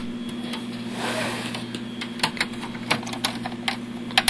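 Irregular small clicks and knocks of computer case parts being handled, over a steady low hum.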